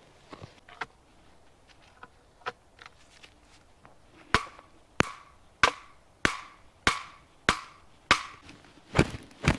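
Wood being chopped: a few faint knocks, then from about four seconds in a steady run of sharp, ringing strikes, about three every two seconds.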